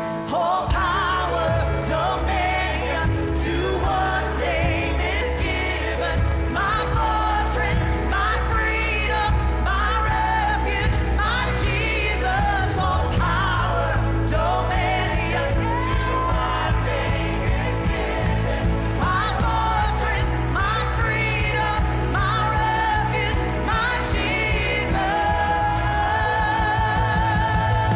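Live worship band music with singers, sung pitch lines over a heavy bass that comes in about half a second in.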